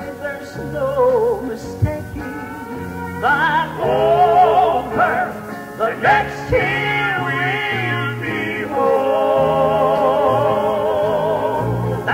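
Male voice singing a slow southern gospel song live, holding long notes with a wide vibrato over a steady bass line. It is an old reel-to-reel concert recording with muffled highs.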